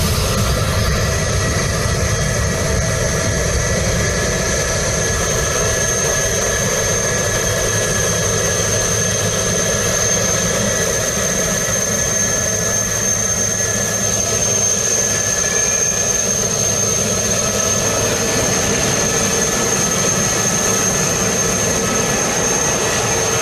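Jet airliner engines running steadily: a dense, unchanging rumble with a low hum and a thin, high whine held on one pitch above it.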